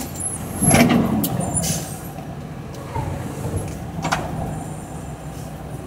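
Mack truck heard from inside the cab creeping in traffic: the diesel engine runs with a steady low rumble. There is a louder burst of noise about a second in and a sharp clack around four seconds in.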